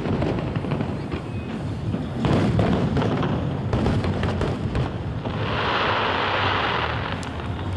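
Aerial fireworks display: repeated shell bursts banging and thudding. About five seconds in comes a loud rush of hissing crackle that lasts a couple of seconds, with music underneath.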